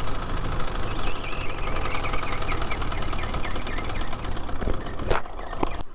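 Pre-1919 vintage motorcycle engine running on the road, with wind rush, easing off slightly near the end as the bike slows. A sharp click comes about five seconds in.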